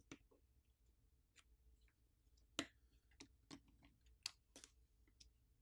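Faint, scattered clicks of a plastic pry pick levering up the ASUS Zenfone 9's plastic top cover over the main board, the sharpest click about two and a half seconds in.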